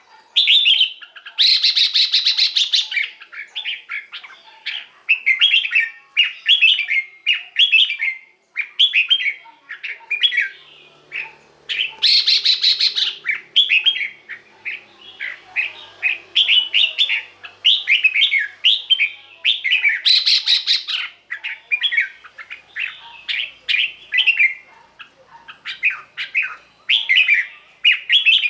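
Red-whiskered bulbul singing a steady stream of short, quick whistled phrases. The phrases are broken about four times by a louder, harsher burst.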